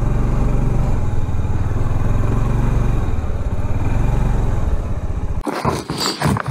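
Suzuki Burgman 400 scooter's single-cylinder engine running at low speed, a steady low rumble that cuts out abruptly about five seconds in, followed by irregular clattering.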